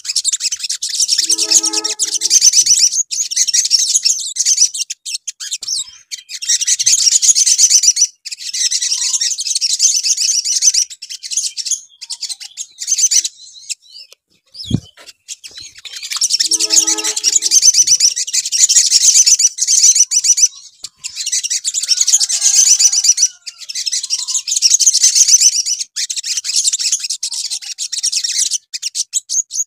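Olive-backed sunbird song used as a 'pancingan' lure track to stir caged sunbirds into singing: loud, rapid, high-pitched trilling phrases a few seconds long with short breaks, and a brief lower call about two seconds in. The same sequence starts over after a click about halfway through.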